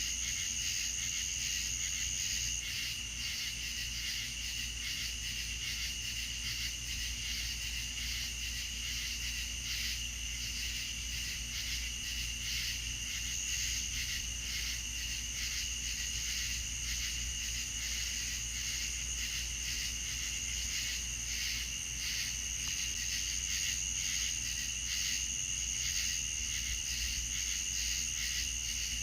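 Night-time insect chorus, crickets chirping steadily in rapid pulses with a constant high trill, over a low steady hum.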